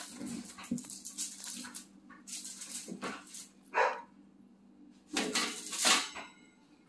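Plastic cling wrap over a bowl crinkling as it is handled, in three crackly stretches. A dog barks once, loudly, just before four seconds in.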